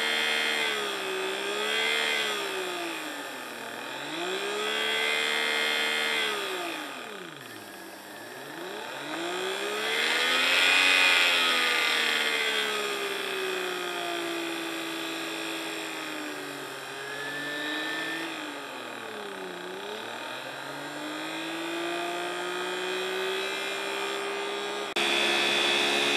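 Small DC motor running off a bench power supply, its whine rising and falling in pitch as the supply is turned up and down, slowing almost to a stop twice. Near the end it jumps to a louder, steady whine.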